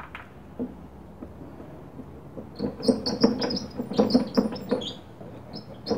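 Flat-head screwdriver prying and scraping at the washer on a lawnmower wheel's axle: a few light clicks, then from about two and a half seconds in a quick flurry of short metallic clicks and squeaks.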